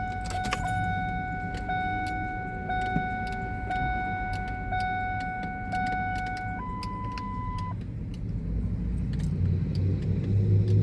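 Steady high electronic warning tone inside the truck cab, with a faint tick about once a second, switching to a single higher tone for about a second past the middle, over a low steady rumble and a few light clicks.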